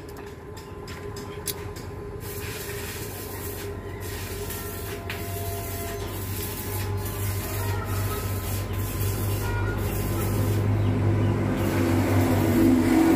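A machine running with a steady low hum that grows louder toward the end, with a few light metallic clicks near the start.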